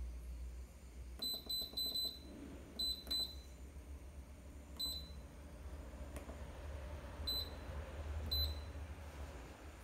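Keypad beeps of an Adidas digital badminton stringing machine: short, high electronic beeps, one for each button press, as the string tension setting is stepped up. About nine beeps come as a quick run of four, then a pair, then single ones spaced out, over a low steady hum.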